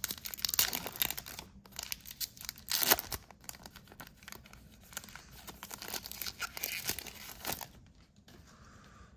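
A baseball card pack wrapper being torn open and crinkled: a run of irregular rips and rustles, loudest about three seconds in, dying down near the end.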